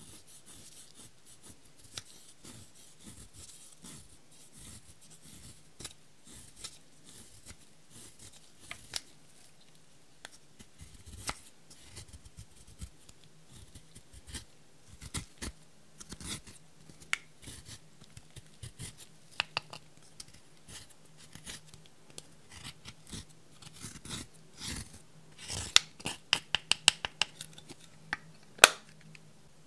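Plastic spatula scraping and crushing pressed blush powder in its compact: a run of dry, scratchy scrapes and small taps. The strokes grow louder and quicker near the end, with a few sharp clicks.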